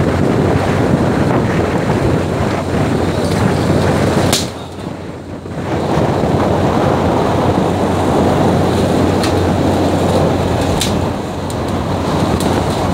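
Steady rumble of a fishing boat's engine under wind buffeting the microphone and rushing sea water. It drops away briefly about four and a half seconds in, and a few sharp knocks come through.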